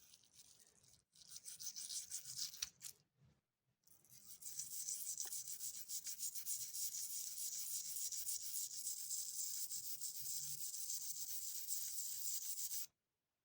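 Rapid, steady scrubbing against an old copper coin's surface, a hissy rubbing. It comes in short spells at first, then runs without a break from about four seconds in until it stops shortly before the end.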